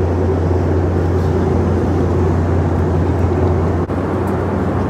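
Airliner cabin noise in flight: the steady low drone of the engines and rushing air, with a momentary drop almost four seconds in.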